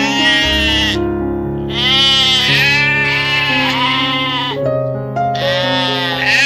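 Background music with held chords, overlaid by a series of about five pitched animal calls, each about a second long, that rise and then fall in pitch.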